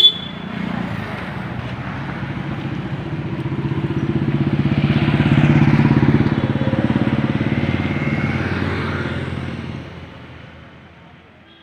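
A motor vehicle engine, most like a motorcycle, running close by on the road: it grows louder to a peak about halfway through, then fades away. A sharp click at the very start.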